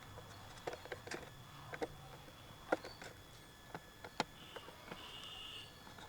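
Scattered small clicks and taps, about one or two a second, as a Bluetooth speaker's circuit board and plastic casing are handled and the board is worked loose, with a faint high squeak about two-thirds of the way through.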